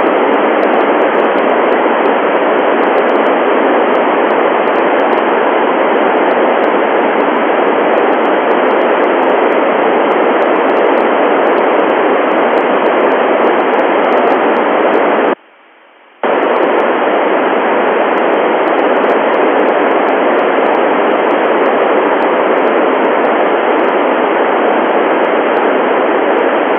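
Steady, loud FM receiver hiss from the Icom IC-9700 listening to UVSQ-SAT's FM downlink while no station is talking through the satellite. A little past halfway the hiss drops away for about a second, then returns.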